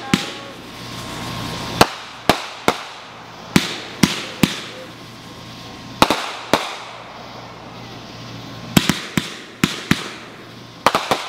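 Aerial fireworks going off: a dozen or more sharp bangs at uneven intervals, some in quick runs of two or three, over a steady background hiss.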